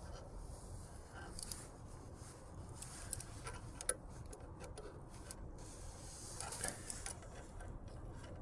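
Faint scattered clicks and scraping of a small wrench working a jam nut tight against a steering-cable turnbuckle barrel, with a few sharper metal taps.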